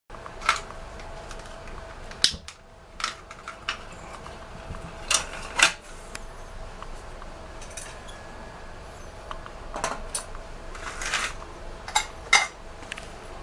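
About a dozen sharp metal clinks and knocks as the sheet-metal body of a 1950s Vulcan Safety Chef camp stove is set over its lit burner and a metal pot is placed on top, over a faint steady background.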